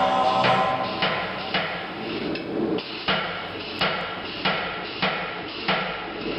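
Hammer blows on steel at an anvil, striking at a steady pace of about one every half second or so, as a blade is forged by hand.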